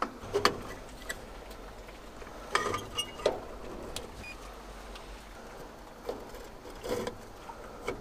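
Scattered light clicks and clatter of plastic and metal parts as gloved hands work at an old combi boiler's control panel, trying to get the circuit board out, with small clusters of knocks a few seconds in and again near the end.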